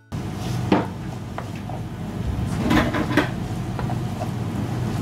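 Diced carrots, onions and spring onions sizzling in oil in a nonstick frying pan while a wooden spoon stirs them, knocking and scraping against the pan several times.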